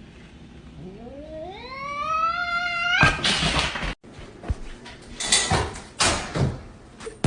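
A cat yowling: one long call that rises steadily in pitch, breaking into a harsh, noisy screech. After a short gap come several shorter harsh bursts.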